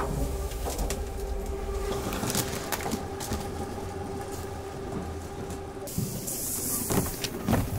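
Steady mechanical hum and low rumble, with scattered clicks and knocks from the camera being handled. A brief hiss comes about six seconds in, and a couple of louder knocks near the end.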